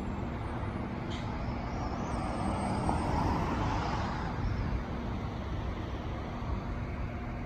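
Road traffic going by, one vehicle passing loudest about three seconds in over a steady low hum.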